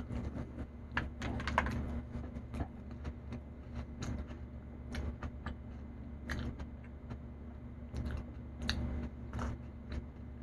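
Close-miked eating: someone chewing a soft sweet roll, with irregular wet mouth clicks and smacks. A steady low hum runs underneath.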